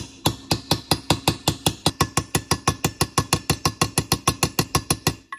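Hammer tapping a socket to drive a bearing into an aluminium Honda CRF250 crankcase half: a quick, even series of light metal blows, about six a second, each with a short ring.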